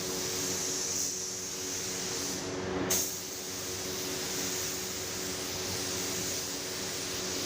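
Air spray gun hissing steadily as paint is sprayed, over the low hum of the air compressor; the spray cuts off for about half a second and resumes sharply about three seconds in.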